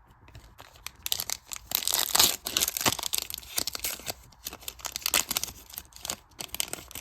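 Plastic foil wrapper of a 2022 Panini Mosaic basketball card pack being torn open and crinkled, a dense run of crackling starting about a second in and fading out near the end.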